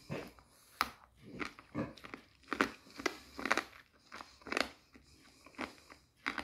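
A hard clear candy being bitten and crunched in the mouth: a run of short, sharp, irregular crunches and clicks.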